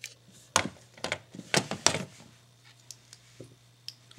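Plastic Lego bricks clicking and clattering as they are handled and pressed together, with a burst of several sharp clicks in the first two seconds and a few faint ticks after.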